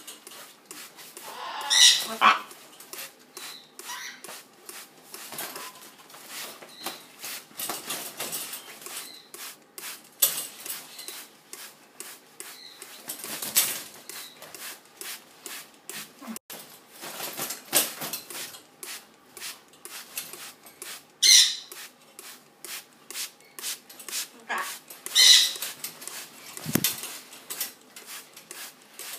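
Macaw flapping its wings while hanging upside down from a shower curtain rod: a long run of irregular flutters with feathers brushing against the curtain, and a few louder bursts along the way.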